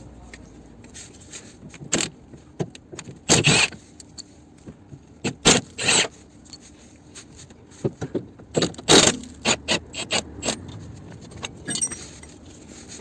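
Metal hand tools clinking and scraping at irregular intervals, with a few longer rasping bursts: a socket wrench being worked on the 18 mm subframe bolts.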